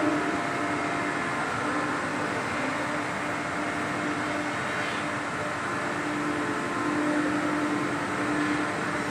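Steady drone of machinery and ventilation in a large woodworking factory hall, with a low hum that swells and fades a couple of times.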